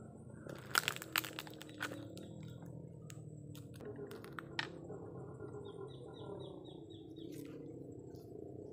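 Dry fallen palm fronds and twigs crunching and snapping underfoot, with a few sharp cracks in the first two seconds. Around six seconds in, a bird gives a quick series of about seven short high notes.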